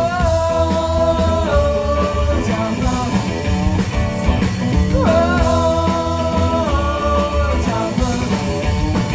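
Rockabilly trio playing live, with upright bass, electric guitar and drums, and two long held wordless sung notes, one at the start and another about five seconds in.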